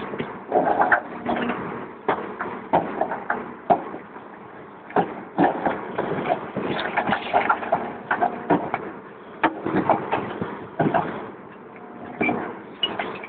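Caterpillar 322 excavator's diesel engine running under a steady hum while its bucket breaks out concrete block, with irregular cracks, knocks and clatter of block throughout.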